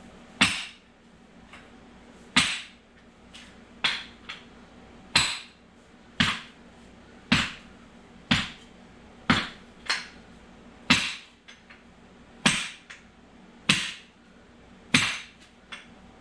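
About fourteen sharp hammer blows, roughly one a second and unevenly spaced, each with a short metallic ring. They are hammering a Honda J-series transmission shaft through a block of wood to drive tightly fitted gears off it.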